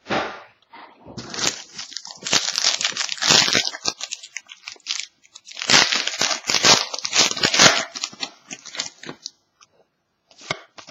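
Plastic wrapping on a sealed box of trading cards being torn open and crinkled by hand, in irregular rustling bursts that are loudest in two stretches.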